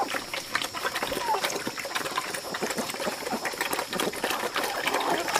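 Pigs eating wet mash from a trough: a fast, dense run of wet chomping, smacking and slurping, with chickens pecking in among them.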